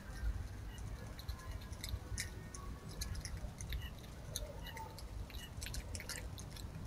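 Red fox eating from a bowl: wet chewing with scattered sharp mouth clicks, coming in short bunches with pauses between.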